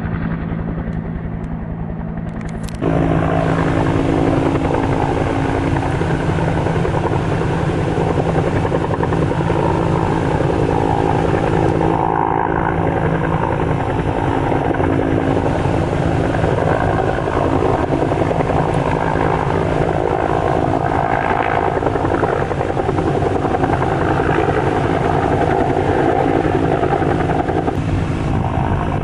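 Helicopter running nearby: a steady drone of rotor and engine with several steady tones in it, which becomes suddenly louder about three seconds in.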